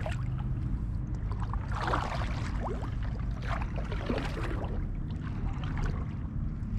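Kayak paddle working the water: a few splashes and drips as the blade dips and lifts, over a steady low rumble.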